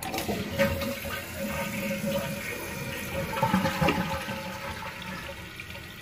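Toilet flushing in a test after a new fill valve was fitted: water rushing out of the open tank into the bowl, loudest in the first seconds and gradually tapering off near the end.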